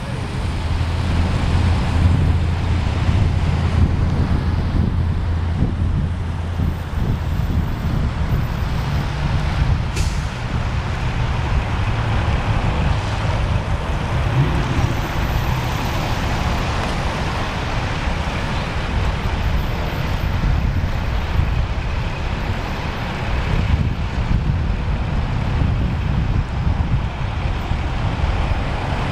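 Heavy truck diesel engine running steadily, a constant low hum under a wash of outdoor noise.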